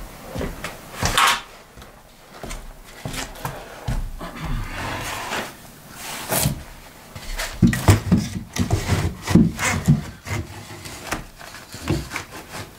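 A strip of OSB board being handled and laid down on the attic floor: wood knocking and scraping against wood, and the rustle of loose insulation fill being pushed about. A run of heavier thumps comes about two-thirds of the way through.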